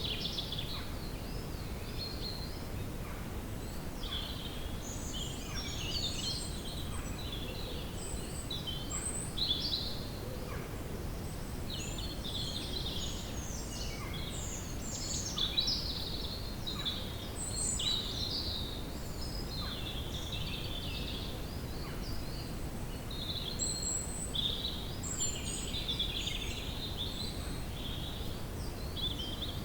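Woodland ambience: several birds singing and calling in short chirps and warbles, over a steady low background rush.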